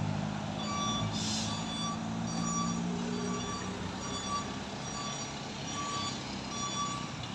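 A truck's reversing alarm beeping steadily, about two short beeps a second, over the low running of a truck engine that fades midway. A brief hiss comes about a second in.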